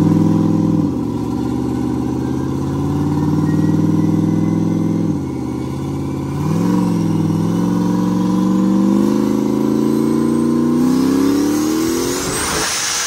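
Turbocharged LS V8 in a BMW running on a chassis dyno: the engine note holds and dips twice, then climbs steadily in pitch for about six seconds as it pulls up through the revs. Near the end a loud burst of hiss comes as the revs fall away.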